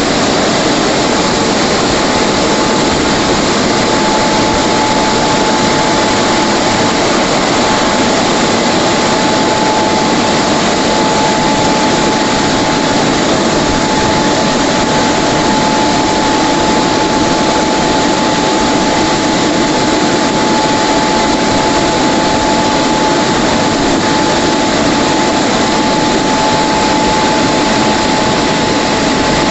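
WashTec SoftCare 2 Pro car wash drying blowers running: a loud, unbroken rush of air with a constant whine, as the gantry's top dryer nozzle passes low over the car.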